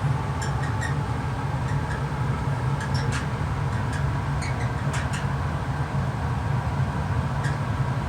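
Furnace running with a steady low hum, broken by short, high squeaks that come at irregular intervals.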